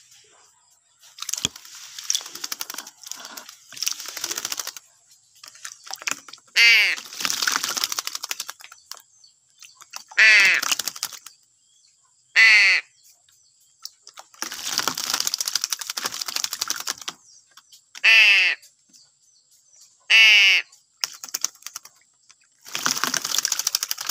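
A Javan myna and a crow calling back and forth: six loud, harsh calls, each about a second long, spread across the stretch, with long bouts of scratchy chattering between them.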